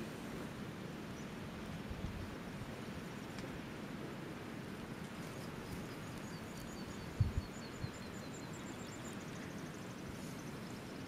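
Steady outdoor background noise, with a small bird's quick run of high notes falling in pitch from about six seconds in, and a couple of brief low bumps about seven seconds in.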